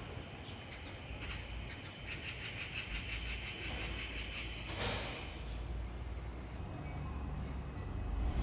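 Low, steady vehicle rumble, with a run of fast, even ticking in the middle and a sharp click about five seconds in.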